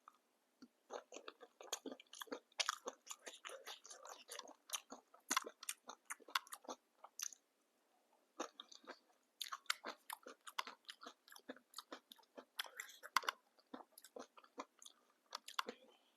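Close-miked chewing and crunching of a mouthful of papdi chaat, the crisp fried papdi wafers cracking between the teeth, with a brief pause about halfway through before the chewing resumes.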